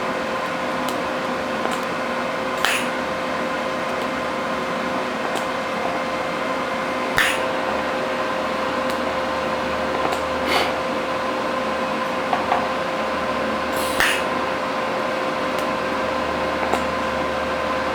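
TIG welder running on Corten steel, closing pinholes: a steady hiss and hum with a constant whine, broken by about five sharp clicks spaced a few seconds apart.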